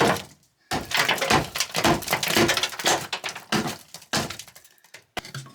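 Quick run of knocks, cracks and clatter from demolition work, with things being pried loose and torn out; the sound stops about a second before the end.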